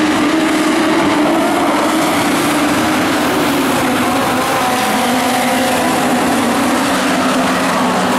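Engines of several small open-wheel speedway race cars running hard around a dirt oval. They make a loud, continuous drone, and the pitch slides slightly as the cars pass and come off the corners.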